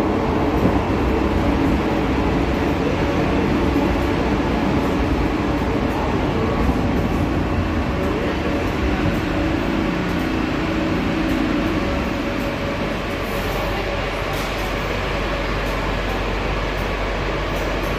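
Buenos Aires Subte Line E subway train running: a steady rumble of wheels on rail with a faint whine. About two-thirds of the way through the running noise eases, leaving a steadier low hum.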